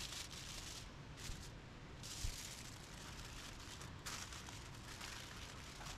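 Aluminium foil crinkling faintly in short spells as it is folded by hand around fish, with a lull between about one and two seconds in.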